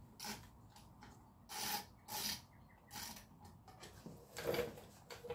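Ratchet and socket being worked on a bolt: about half a dozen short rasping strokes, unevenly spaced.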